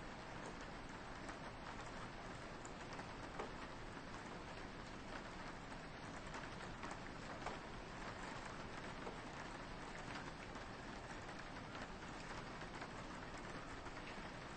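Soft rain falling steadily on a window, a soft hiss with many small scattered drop taps.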